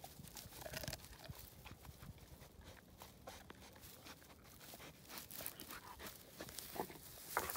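A 90-pound dog gnawing on a wooden stick while rolling in dry grass: faint, irregular crunching and crackling of wood and dry grass stems, with a sharper crack near the end.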